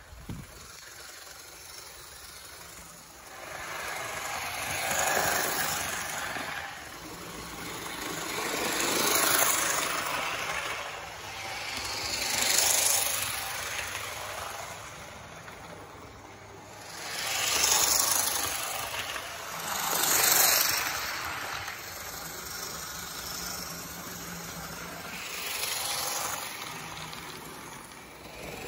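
Model train running on its track, a vintage Bachmann F-unit diesel locomotive with freight cars: its motor and wheels on the rails make a steady rattle. The rattle swells and fades about five times as the train passes the microphone again and again.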